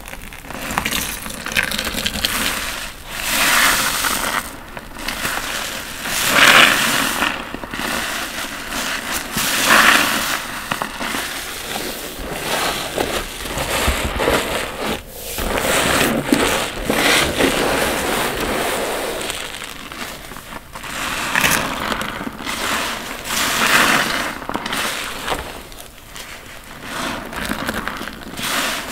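Soaked, soapy bath sponge squeezed over and over in gloved hands: wet squelching and crackling lather, with water gushing out, one squeeze every few seconds.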